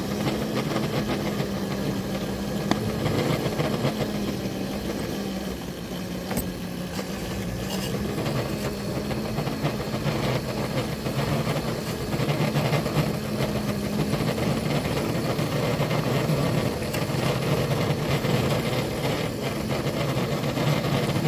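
Locomotives running steadily under load as they push a plow through deep snow, a continuous mechanical hum.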